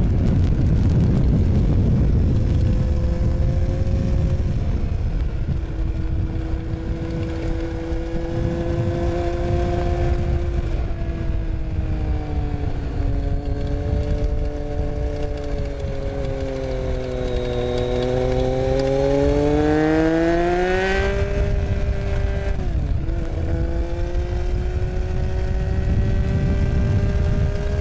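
Triumph Street Triple 675's inline three-cylinder engine running under way, with a heavy low rumble underneath. Its pitch sags, then climbs steadily for several seconds and drops abruptly about three-quarters of the way in before settling at a steady note.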